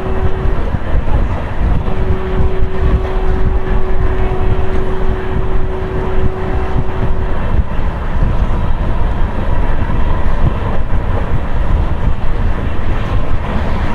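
Moving train running: a steady low rumble with wind buffeting the microphone, and a thin steady hum over it from about two seconds in to about halfway.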